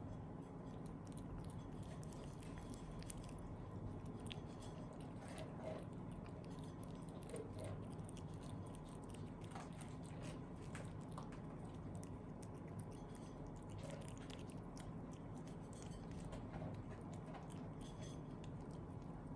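A pet eating, faint crunching and small irregular clicks of chewing over a steady low hum.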